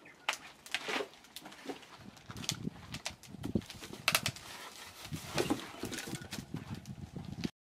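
Bark-covered wooden offcuts being handled and stacked on a pile: irregular knocks of wood on wood with scraping and rustling of loose bark, the sharpest knocks about four and five and a half seconds in.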